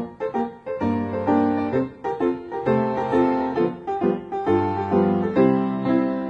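Piano music: chords and melody notes changing in a steady rhythm, a soundtrack accompanying the silent cartoon.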